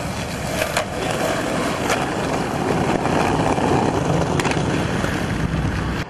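Skateboard wheels rolling steadily over pavement, with a few sharp clicks along the way.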